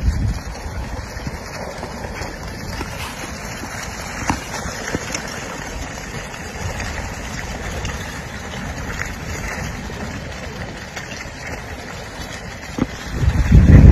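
Blocky lava flow advancing: a steady rushing noise with scattered clicks and cracks as glowing clinker blocks shift and tumble, and a sharper crack about four seconds in.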